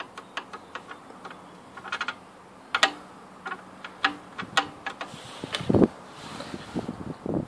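Handling noise: irregular sharp clicks and ticks, with a few dull thumps about five and a half seconds in, the loudest part.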